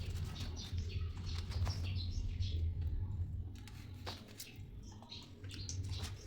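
Close-miked chewing and wet mouth sounds of someone eating a bread-and-chips sandwich: irregular small clicks and smacks over a steady low hum.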